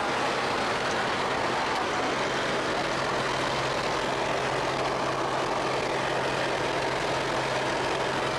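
Steady drone of a light aircraft's engine and propeller heard inside the cabin in flight, a constant low hum under a dense rush of noise.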